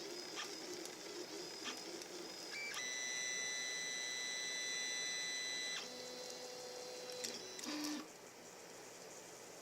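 3D printer's stepper motors whining at steady pitches as the axes move. A few light ticks come first, then a high whine for about three seconds. A lower tone follows for about a second and a half, and a short low note ends it.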